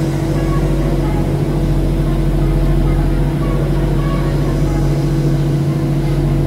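Steady low mechanical hum with constant low-pitched tones under an even rushing noise, like engine or ventilation machinery running.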